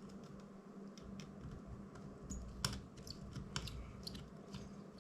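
Scattered small clicks and taps of a precision screwdriver working tiny screws out of a drone's plastic frame, the loudest about two and a half seconds in. A faint steady hum lies underneath.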